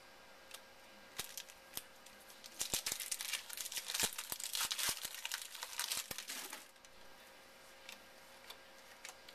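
Plastic-foil wrapper of a football card pack being torn open and crinkled by hand. A few light clicks come first, then dense crinkling for about four seconds in the middle.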